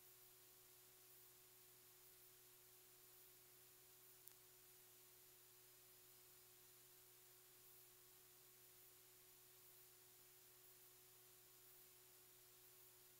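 Near silence: a faint steady hiss with a faint low hum, and one faint tick about four seconds in.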